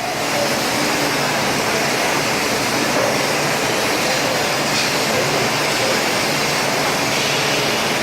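A 3 kW fiber laser CNC cutting machine at work on 4 mm carbon steel: a steady, even rushing hiss with a low hum beneath it.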